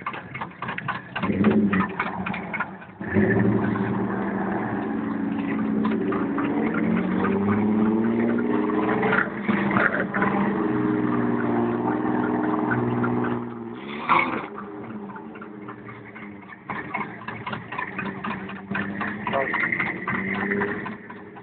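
4x4 truck engine running hard under load through mud, its pitch rising and falling with the throttle, loudest for about ten seconds and then dropping off. Voices are heard faintly under it.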